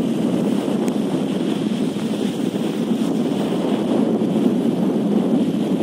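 Wind blowing steadily across the microphone over choppy reservoir water, with waves washing against the stone embankment.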